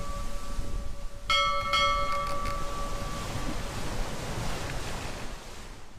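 Public-address chime in an airport terminal: two bell-like notes struck in quick succession about a second in, ringing out and fading over the next couple of seconds, over a steady terminal hubbub. The sound fades away at the very end.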